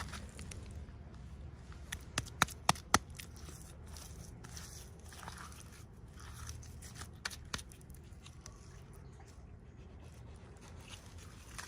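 Small toy packaging being handled and opened: soft crinkling and tearing with sharp clicks, four close together two to three seconds in and two more a few seconds later.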